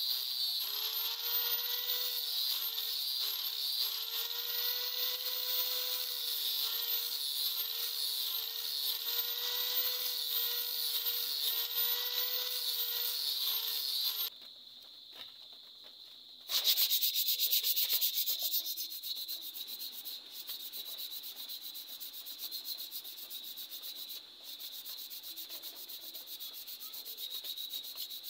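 Angle grinder with a sanding disc running against a wooden knife handle, its whine sagging and recovering as it is pressed onto the wood; it stops about 14 seconds in. After a short lull the handle is sanded by hand with quick rubbing strokes that start loud and then ease off.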